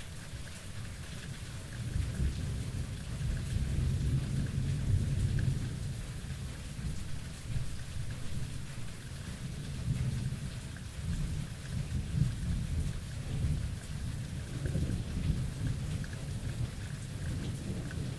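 Thunderstorm: steady rain hissing throughout, with rolling thunder rumbling deep underneath, swelling loudest about two to six seconds in and surging again later.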